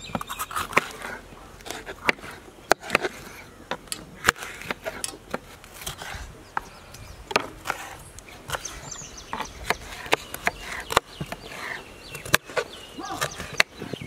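Kitchen knife chopping green bell peppers on a wooden chopping board: irregular sharp knocks of the blade striking the board, about one or two a second.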